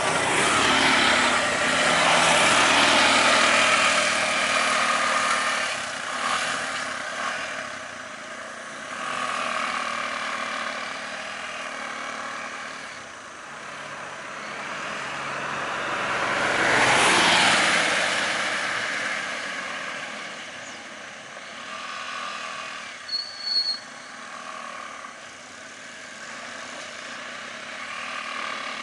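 Road traffic with auto-rickshaw engines running: a vehicle passes close by near the start and another about 17 seconds in, each swelling and fading away. About 23 seconds in come two short, high beeps.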